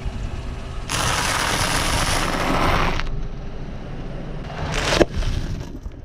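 Car tyre rolling over and crushing objects, over a low rumble of the car. There is a long loud crunching noise from about one to three seconds in, then a single sharp crack about five seconds in.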